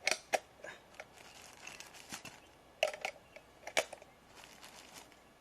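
A handful of short, sharp clicks and knocks, about six spread unevenly over a few seconds, over a faint background.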